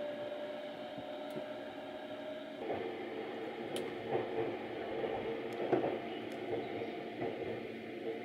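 Train running noise inside a compartment of the Sunrise Izumo sleeper train as it moves: a steady hum and rumble. It grows louder and rougher about two and a half seconds in, with a few faint clicks.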